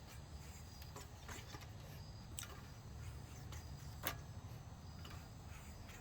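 Electrical tape being unwound and wrapped around a wooden tool handle: scattered soft clicks and crackles, one sharper click about four seconds in, over a low steady hum.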